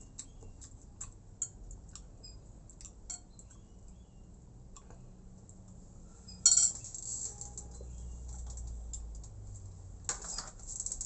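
Close-miked eating sounds: scattered small clicks of mouth, fingers and plate, with a louder, sharper noise about six and a half seconds in and more near the end.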